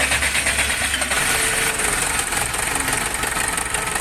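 Loader's diesel engine running just after it fires up, with a loud, even diesel clatter: it runs again now that the air lock has been bled from the fuel system after running out of diesel.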